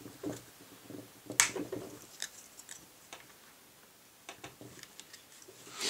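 Small plastic and metal clicks and scrapes as a Glock backstrap pin is pushed into the polymer grip frame with the punch on a Glock tool, with one sharp click about one and a half seconds in.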